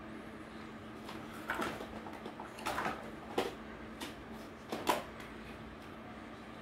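Hard plastic toy trucks and a toy loader knocking and clattering as a small child handles them, in a few separate knocks and short rattles, over a steady low hum.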